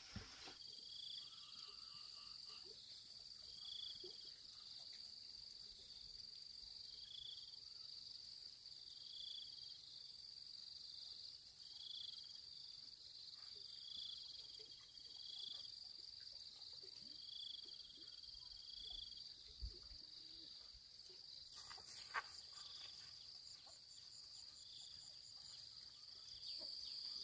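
Faint outdoor ambience: a steady high-pitched insect drone with a short chirp repeating every two seconds or so, and a couple of faint clicks in the later part.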